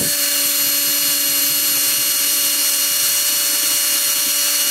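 Milwaukee cordless drill with a socket fitted, running steadily at one pitch as it turns an air-box bolt.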